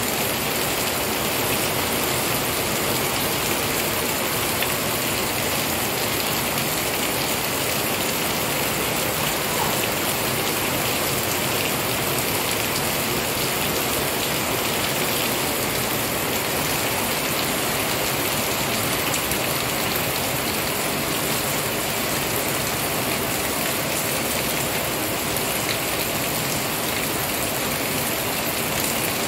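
Heavy rain pouring steadily onto leafy trees and puddled ground, an even hiss that does not let up.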